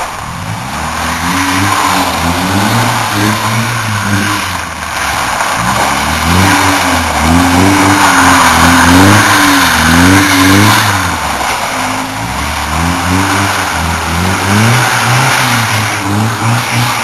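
BMW E30 1.8i's four-cylinder engine revving up and falling back again and again as the car is slid sideways on ice.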